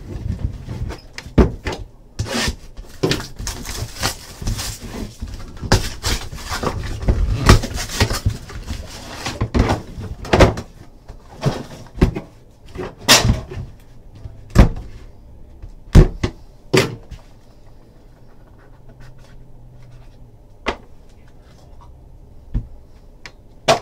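A 2015 Panini Immaculate Baseball card box being opened by hand: its sleeve slid off and the lid lifted, with a run of knocks, scrapes and rustles. The sounds thin out to a few separate taps about two-thirds of the way through, as the stack of cards is handled.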